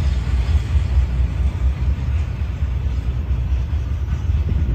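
Freight train's double-stack container well cars rolling along the rails, a steady low rumble.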